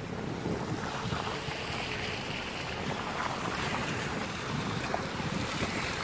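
Steady rushing road noise from a vehicle driving on wet pavement: tyres hissing on the soaked road, with wind buffeting the microphone.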